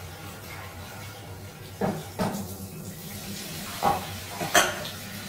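Eating with the hands at a table: a few short, sharp clatters and crunches of food and dishes, most of them in the second half, over a steady low hum.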